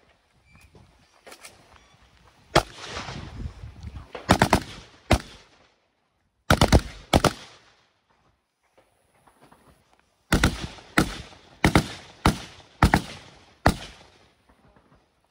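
Rifle fire on the move: a string of single shots, some in quick pairs, then a pause of about three seconds, then six steady shots a little over half a second apart.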